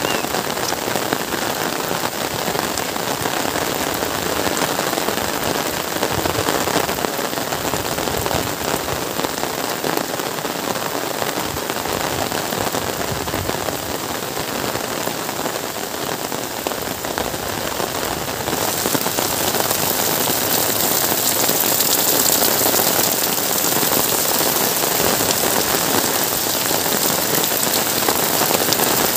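Heavy rain falling on a wet paved road and the plants beside it, a steady hiss that grows brighter about two-thirds of the way through.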